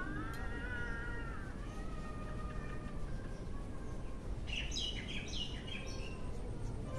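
Birds chirping: a quick run of short descending chirps about four and a half seconds in, after a drawn-out wavering call at the start, over a steady low rustling noise.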